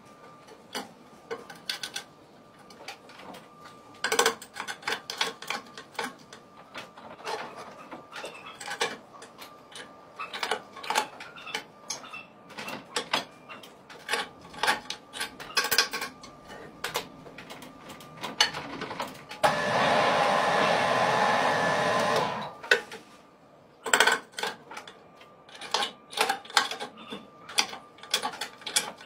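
Metal clicks and clanks of a red hydraulic bottle jack being set and pumped with a steel bar handle, braced against the lip of an alloy car rim to press a bent section back out. About two-thirds of the way through, a steady rushing noise lasts about three seconds and then stops.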